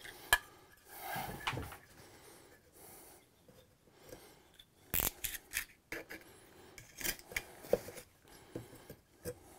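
Hands working a metal electrical box against wooden framing, fibreglass insulation and plastic vapor barrier: scattered light clicks and clinks with short scraping and rustling noises.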